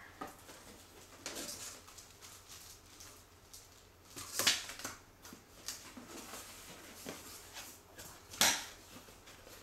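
Paper and cardboard rustling and scraping as a lens box is unpacked by hand, with two louder crinkling bursts about four and a half and eight and a half seconds in.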